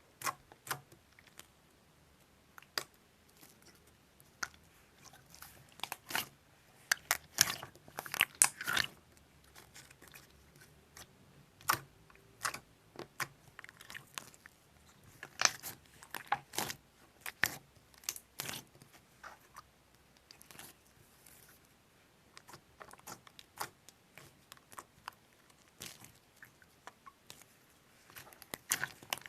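A long irregular run of small, sharp clicks and crackles close to the microphone, coming in clusters, with quiet gaps between.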